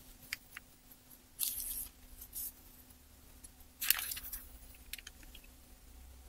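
Short bursts of paper rustling and handling noise from hands working with thin paper and foil on a workbench, with a few light clicks between them; the loudest burst comes about four seconds in, over a faint steady hum.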